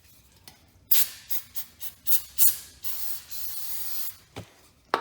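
Aerosol brake cleaner spraying: several short hissing spurts, then one steadier spray of about a second.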